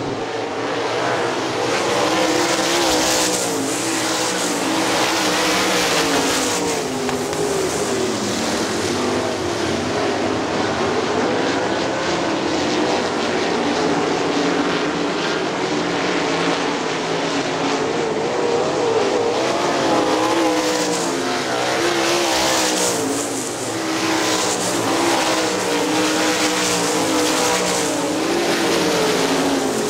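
A field of 410 sprint cars' methanol-burning V8 engines racing around a dirt oval, their pitch rising and falling over and over as the cars lift and power through the corners.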